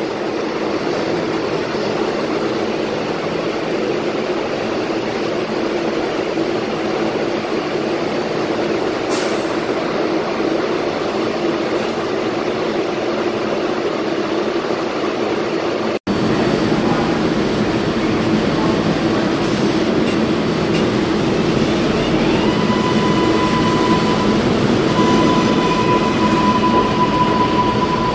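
R188 subway train standing at the platform with a steady hum from its equipment; after a cut, a steady high tone and a faint rising electric whine from its traction motors come in as it starts to pull out.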